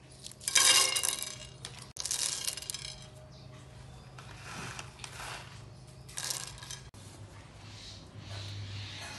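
Whole spices, green cardamom pods and black peppercorns, dropped by the handful onto a dry metal pan, clattering on the metal in two short bursts about half a second and two seconds in, with a smaller clatter near six seconds. A low steady hum runs underneath.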